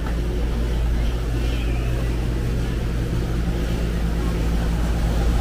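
Busy market ambience: a steady low rumble under faint, indistinct voices of vendors and shoppers.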